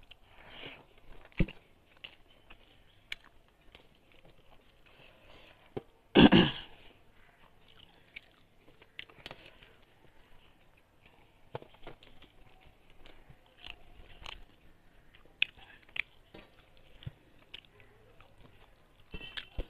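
A person eating by hand close to the microphone: wet chewing and lip smacks with scattered short clicks, and one much louder burst of about half a second around six seconds in.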